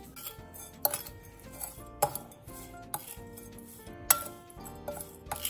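Metal spoon scraping and clinking against a ceramic bowl while tossing chopped herbs, shallots and fried garlic, with several sharp clinks about a second apart.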